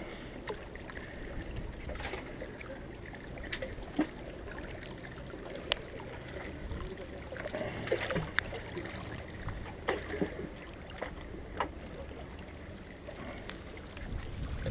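Steady low wash of sea and wind at the shore, with scattered sharp clicks and rustles of the fish and tackle being handled close to the microphone.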